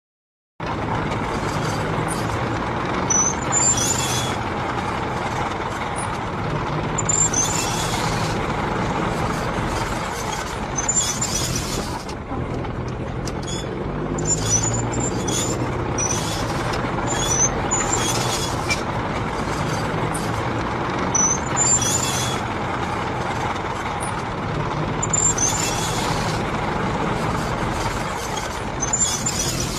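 Old military tank running on its tracks: a steady engine drone under the rumble of the tracks, with a short high squeal about every four seconds.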